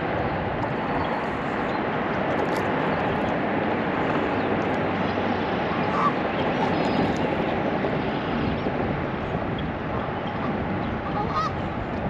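Geese honking a few times over a steady rushing background noise.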